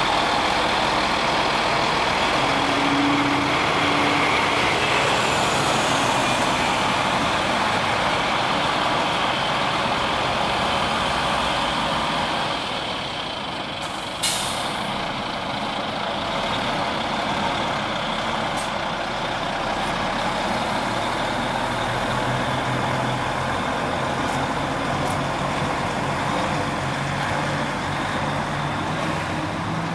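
Heavy DAF XF lorry's diesel engine running as it pulls a low-loader slowly along the street, with a short, sharp air-brake hiss about halfway through.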